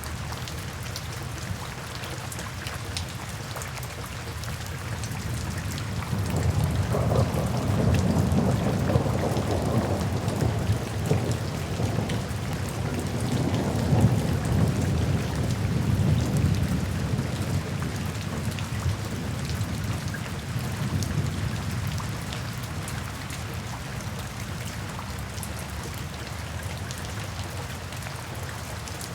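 Steady rain falling, with a rolling rumble of thunder that swells about six seconds in, peaks in the middle and fades away over the next several seconds.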